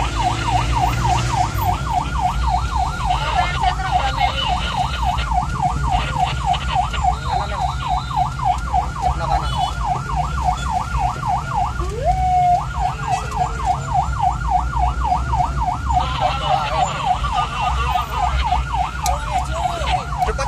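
Ambulance's electronic siren in a fast yelp, rising and falling about three times a second, heard from inside the cab over a steady engine rumble. It breaks off about twelve seconds in and restarts with a short rising sweep, and a second siren overlaps it near the end.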